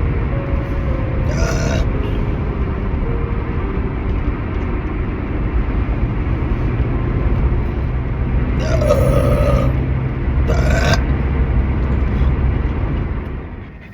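Steady low road and engine rumble inside a moving car's cabin. Three brief noisy sounds break over it about a second and a half in, around nine seconds in and again around eleven seconds in. The rumble drops away near the end.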